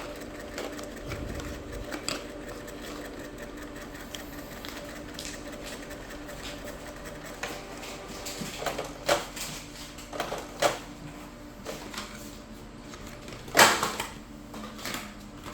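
Canon MX366 inkjet printer running a deep-cleaning cycle, a steady mechanical hum with several sharp clicks and knocks in the second half, the loudest about two seconds before the end.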